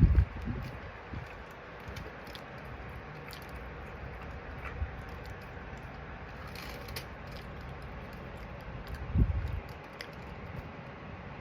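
Close-miked chewing of soft-centred air-fried french fries, with small scattered wet mouth clicks. Two short, loud low thumps stand out, one at the very start and one about nine seconds in.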